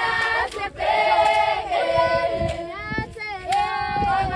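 A group of girls and young women singing a Zulu ceremonial song together, in long held notes with short breaks between phrases.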